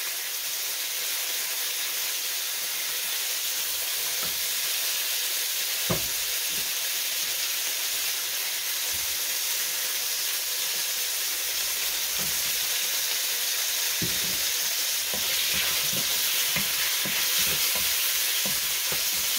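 Sliced chicken with ginger, garlic and onion sizzling steadily in hot oil in a stainless steel wok as it is stirred, with a few knocks, a sharp one about six seconds in; the sizzle grows a little louder in the last few seconds.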